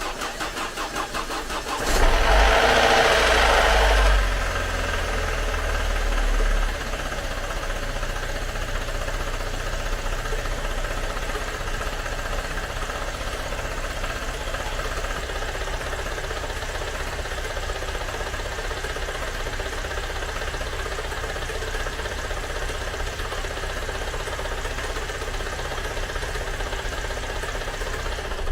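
Freshly rebuilt Great Wall WEY engine, with new piston rings, cranked by the starter. It catches about two seconds in with a loud flare of revs, eases back about two seconds later, and settles into a steady idle.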